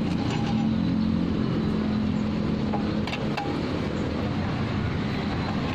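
Cross-shaped lug wrench tightening a car's wheel nuts, with a couple of light metallic clicks about three seconds in, over a steady low mechanical hum.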